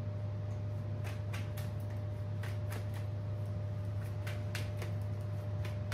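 A deck of tarot cards being shuffled in the hands: a run of short, sharp card clicks and slaps in small clusters from about one to five seconds in, over a steady low hum.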